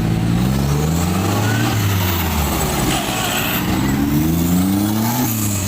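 Off-road 4x4 vehicle's engine revving, its pitch rising twice in long pulls and dropping back after each.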